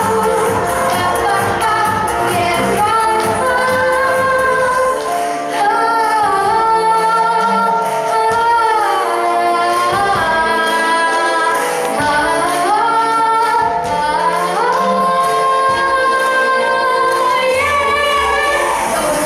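A pop-style song: a female voice sings the melody, with held notes and pitch slides, over an instrumental backing track, with the bass dropping out for a few seconds at a time in the middle.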